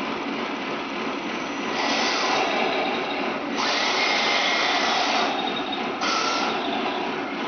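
A 1/16 scale radio-controlled tank's small electric drive and turret gear motors whining as the tank pivots and traverses its turret. The whine comes in stretches that change in loudness and pitch about two, three and a half, five and six seconds in.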